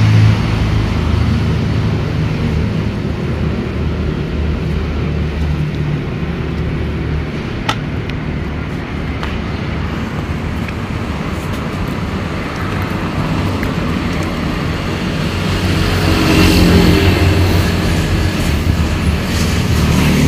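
Steady road traffic with vehicle engines running, swelling louder as something passes near the end. A single sharp click about eight seconds in.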